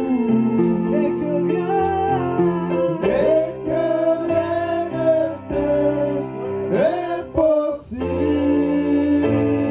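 Live gospel worship music: an electronic keyboard holding sustained chords under sung vocals, a woman's voice leading.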